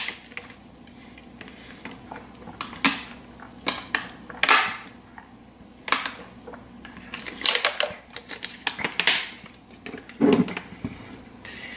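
Thin plastic water bottle being handled: the cap twisted open, then the bottle crackling and crinkling in the hand in a series of sharp, irregular crackles as it is tipped up and drunk from.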